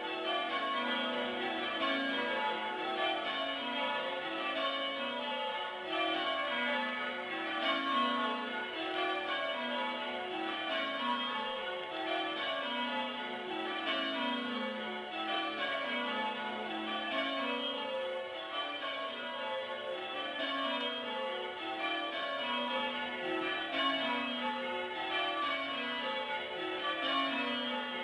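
Church bells being change-rung, heard from inside the tower below the bells: an unbroken run of strikes that falls through the bells over and over, each row about two seconds long.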